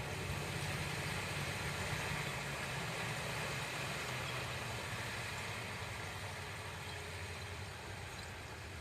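Heavy vehicle engine running steadily, fading slowly toward the end.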